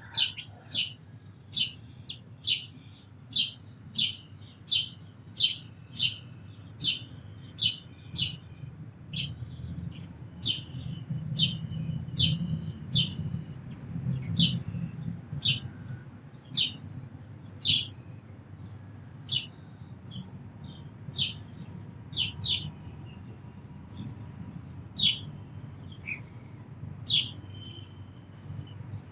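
A sparrow chirping repeatedly: short, sharp, high chirps at about one to two a second, becoming sparser after about 18 seconds, over a steady low rumble.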